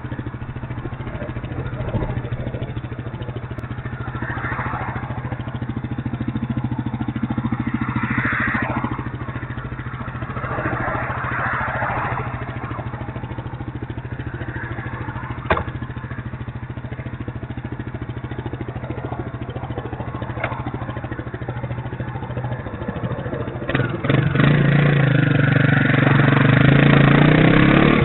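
Motorcycle engine idling steadily while a few cars swish past on the road. About 24 seconds in the engine revs up, louder, as the bike pulls away.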